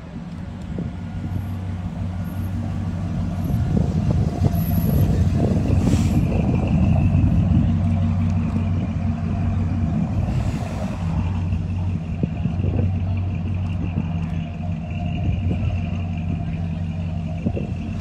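Engine of a 1940s coupe hot rod running at low speed as the car rolls slowly past. Its low, steady sound grows louder as it nears, is loudest a few seconds in, and then carries on as the car pulls slowly away.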